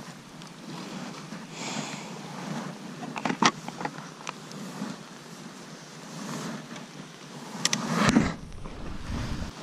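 Motorcycle, a KTM Duke, moving slowly over a wet, rocky dirt track, its sound mixed with a steady rush of wind and rain noise on the action camera. A few sharp knocks come about three and a half seconds in, and a louder knock and low rumble about eight seconds in.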